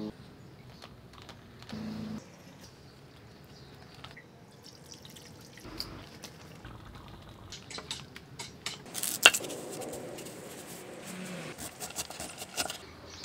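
Cooking sounds: wet pops and drips of thick chili bubbling in a wide steel pan, and sharp knife chops on a wooden cutting board toward the end, with one loud knock about nine seconds in.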